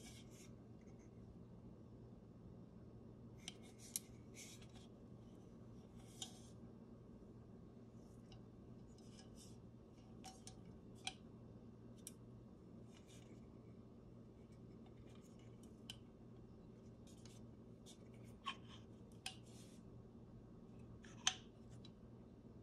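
Small metallic clicks and scrapes from the brass measuring top of an antique black powder flask being turned and worked in the hand. The clicks come singly at irregular intervals, the sharpest near the end, over a faint low hum.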